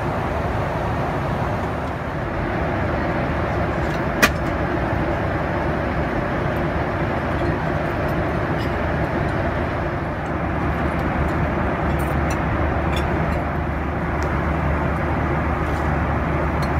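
Boeing 737-800 cabin noise in flight: a steady rush of airflow and engine noise. One sharp click about four seconds in, and a few faint clicks near the end.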